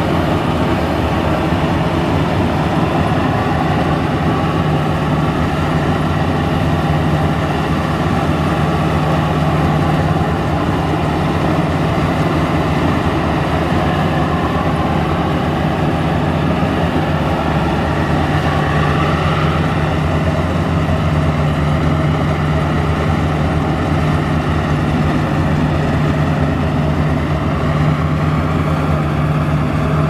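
Maxxi Bimo 110 Plus rice combine harvester running steadily while it cuts and threshes standing rice: a constant, even engine drone with a strong low hum.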